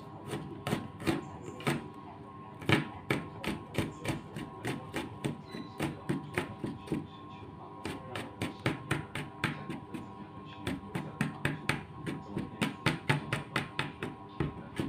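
Kitchen knife chopping garlic cloves on a plastic cutting board: a quick run of sharp knocks, about three to four a second, with a short pause about seven seconds in before the chopping picks up again.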